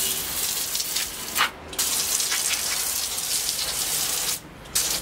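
Hand-pumped, pre-pressurised pressure washer spraying a straight jet of water into a drain gutter: a steady spray noise that cuts out briefly about a second and a half in and again near the end.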